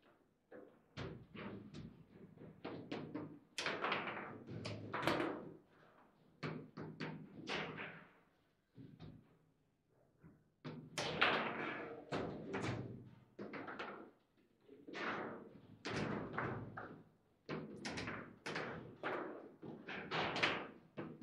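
Foosball table in fast play: the ball knocks against the figures and walls, and the rods clack as they are slid and spun, in quick clusters of sharp knocks. There is a short lull about nine seconds in.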